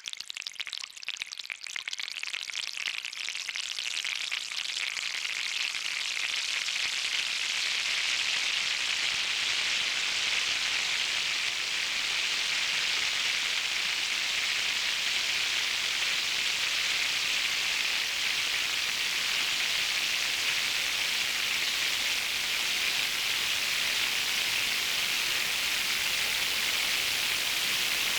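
Eurorack synth patch imitating heavy rain: Mutable Instruments Plaits' particle-noise model, fed noise from a Kinks module, with a Magneto delay bringing out the crackle. It starts as scattered crackling and thickens over the first several seconds into a dense, steady hiss, like a downpour or something frying.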